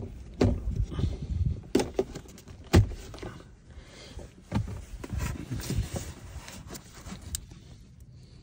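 Plastic trim of a Cadillac Escalade center console being pried up and handled by hand: a run of irregular clicks and knocks with rustling between, the sharpest knocks about two and three seconds in, growing quieter toward the end.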